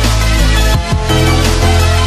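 Electronic music with a deep, heavy bass and a falling pitch sweep about a second in.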